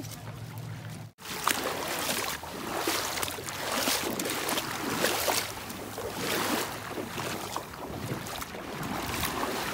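Wind buffeting the microphone over water rushing and splashing, rising and falling in surges. A low steady hum stops abruptly about a second in.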